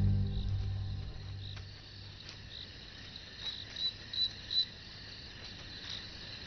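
Background music dying away in the first second or two, leaving crickets chirping steadily, with a run of four louder chirps about halfway through.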